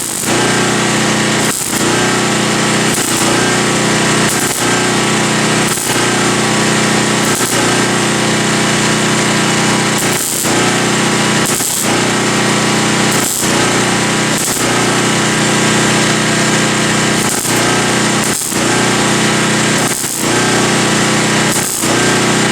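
A power tool running loudly and steadily, broken by brief dips about every one to two seconds.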